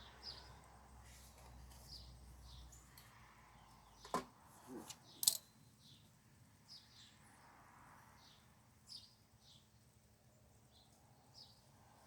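Small birds chirping faintly and repeatedly, with a few brief rustles and clicks about four to five seconds in; the loudest is a single sharp click.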